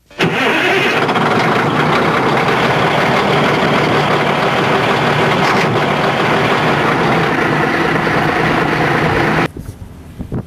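Mini excavator's engine running steadily while drilling soil. It cuts off suddenly near the end, leaving wind noise on the microphone.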